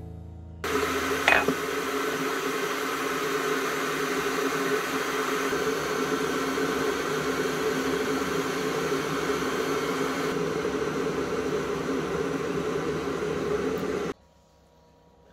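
Electric kettle heating toward the boil: a loud, steady rushing rumble that stops suddenly near the end, with one sharp click about a second in.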